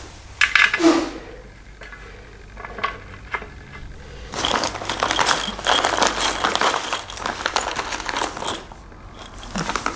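Small metal screws and fittings clinking and rattling in a plastic hardware bag as it is rummaged through, a dense run of tiny clicks lasting about four seconds from near the middle.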